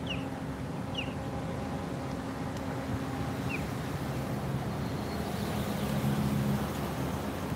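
Low steady engine drone whose pitch shifts about halfway through and grows stronger near the end, with three short seagull calls in the first few seconds.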